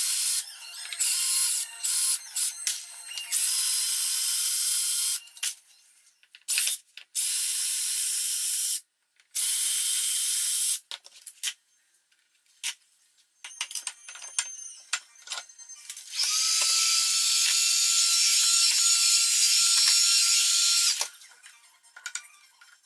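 Metabo cordless drill/driver running in repeated short bursts while backing screws out of a wooden mold box, with clicks and rattles between the runs. The longest run is a steady whine of about five seconds, starting about two-thirds of the way in.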